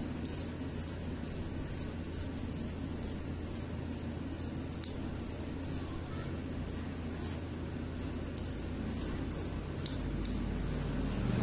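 Copper winding wire being handled and worked by hand: short, light scratches and ticks at irregular intervals, over a steady low hum that grows louder near the end.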